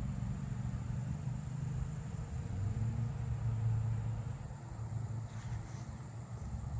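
Steady low rumble of vehicle traffic, with the faint, very high song of a common meadow katydid: a buzz about one and a half seconds in and a short run of fast ticks about four seconds in.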